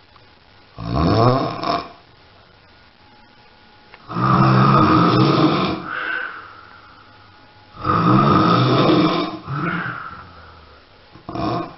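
A person snoring loudly: a short snore about a second in, two long snores about four and eight seconds in, each trailing off more quietly, and a brief one near the end.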